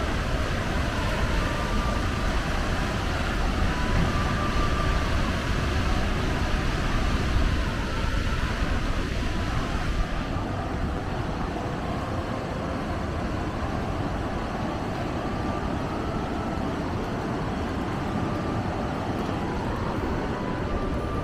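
Steady rushing roar of a dam's flood discharge and the swollen river below it, with wind buffeting the microphone, heavier in the first half.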